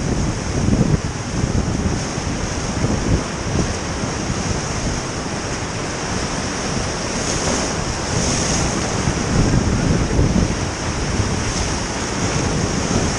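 Steady roar of a big whitewater rapid on the Colorado River, heard from a raft running through it, with wind buffeting the microphone. Waves splash over the boat near the end.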